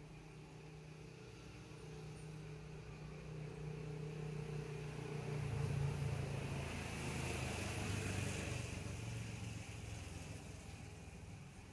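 A motor vehicle passing by: its engine grows louder, drops in pitch as it goes past about halfway through, then fades away.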